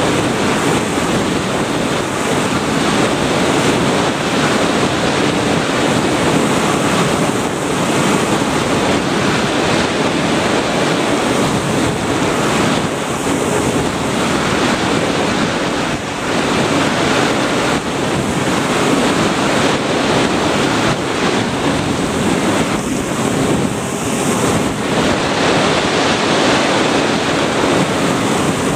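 Steady rushing noise on the Sky Surfer FPV plane's audio feed in flight. It is like air rushing past, with no clear motor tone and only small dips in level.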